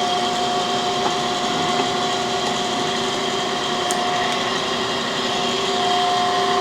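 Cam grinding machine running steadily: an even mechanical rush with a steady whine on top, and no strokes or changes in speed.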